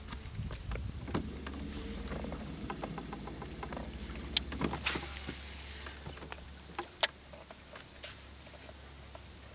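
Small irregular clicks and knocks from a fishing rod and reel being worked during a topwater frog retrieve, with two sharper ticks, over a low steady hum that fades about six seconds in.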